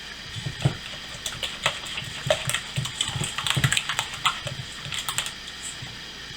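A utensil clicking and tapping irregularly against a mixing bowl as an egg is stirred into a yogurt batter, with some wet stirring sound.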